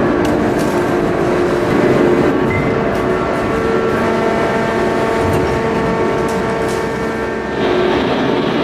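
Steady industrial hum and drone of a large open-die hydraulic forging press and its machinery, with several held tones and no hammer blows. The pitch of the drone shifts about four seconds in and again near the end.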